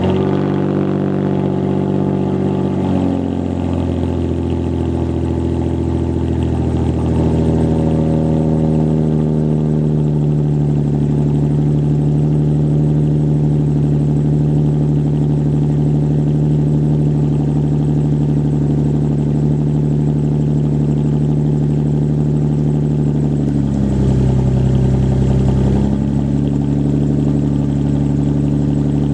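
Mazda 6 V6 just after a cold start, idling at a raised idle through an exhaust modified to be louder. The engine speed steps down twice in the first ten seconds as the idle settles, then holds steady with a brief change in tone near the end.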